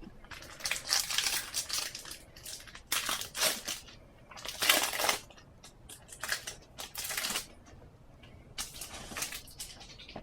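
Foil trading-card packet being torn open and crinkled by hand, in several irregular rustling bursts.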